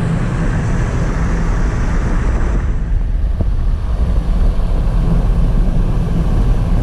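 Steady low rumble of road and engine noise heard inside a moving car, with a hiss of wind and tyre noise that eases about three seconds in.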